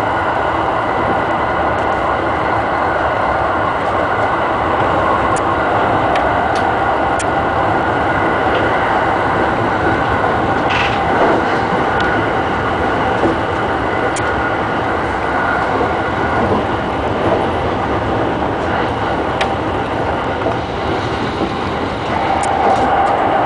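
E217 series electric train running at speed on the track, a steady rumbling running noise with a steady whine and occasional sharp clicks from the wheels on the rails.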